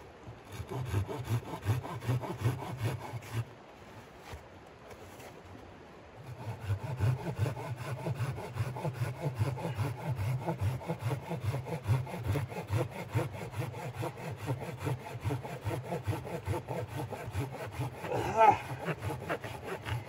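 Small hand saw cutting through a dry, weathered log in quick back-and-forth strokes. The sawing starts about a second in, pauses for about two and a half seconds, then runs steadily, with a brief pitched squeak near the end.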